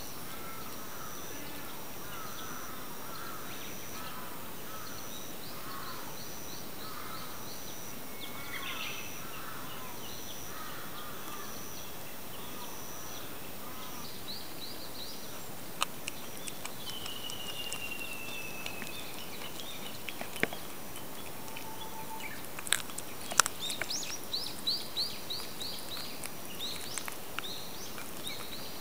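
A cat chewing a rat, crunching through bone and gristle with sharp cracks that begin about halfway through and come thickest near the end. Birds call in the background, and a short high chirp repeats about once a second through the first half.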